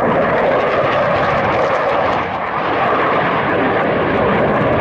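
Dassault Mirage 2000 fighter flying past overhead; its SNECMA M53 turbofan makes a loud, steady jet noise, with a brief slight dip about two seconds in.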